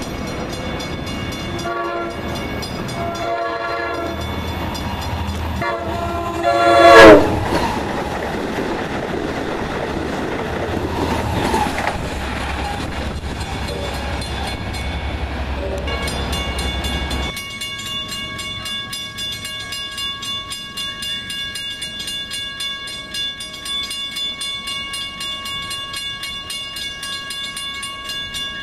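Long Island Rail Road diesel locomotive sounding its horn in three blasts as it comes on. The last and loudest blast drops in pitch as the locomotive passes, and the train's engine and wheels rumble by until the sound cuts off sharply about 17 seconds in. After that a grade-crossing bell rings steadily.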